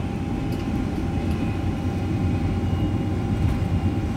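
Cabin noise inside a Boeing 747-400 taxiing after landing: a steady low rumble from its four turbofan engines at idle and the airframe rolling on the taxiway, with a faint steady whine over it.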